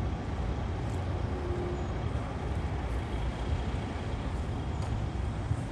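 Steady low rumble of motor vehicles, typical of outdoor street or truck-yard traffic, with no distinct events.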